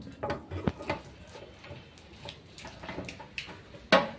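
Latches on a steel electrical panel cover being turned open with a key, giving a series of small clicks and knocks, then a single sharp clank near the end as the cover is worked loose.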